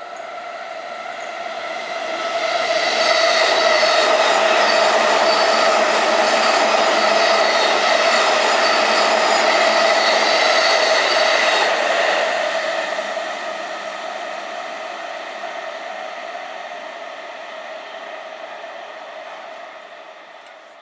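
A Keihin-Tohoku Line electric train passing over a level crossing: the noise swells about two seconds in, stays loud until about twelve seconds, then fades away. A level-crossing alarm keeps sounding steady tones throughout.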